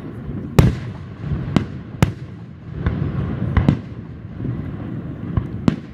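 Aerial firework shells bursting: about eight sharp bangs at irregular intervals, the loudest about half a second in, with a low rumble between them.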